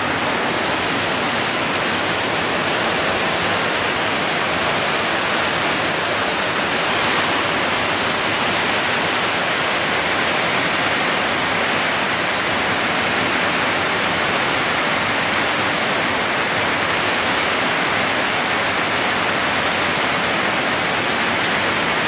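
Heavy rain pouring down in a steady, loud rush, falling onto a stony dirt street running with water.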